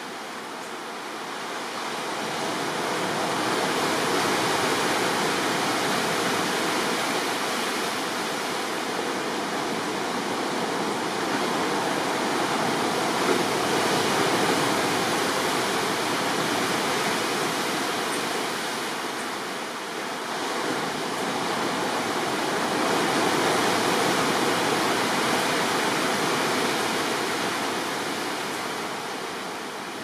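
Sea surf breaking over rocks and onto a sandy beach: a steady rush of waves that swells and eases slowly, with a dip about two-thirds of the way through.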